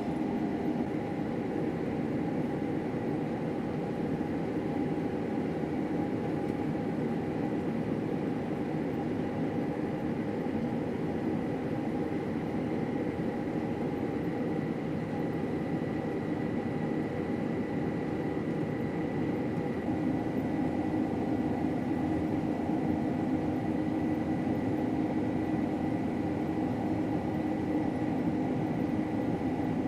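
Combine harvester running steadily while cutting wheat: an even mechanical drone with a faint steady high whine above it. The tone shifts slightly about two-thirds of the way through.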